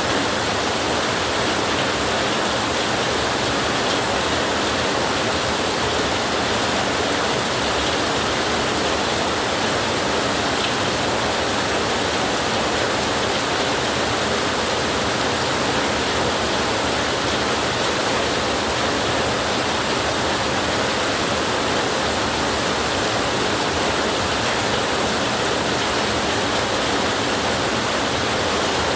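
Heavy rain falling, a dense, even hiss with no thunder.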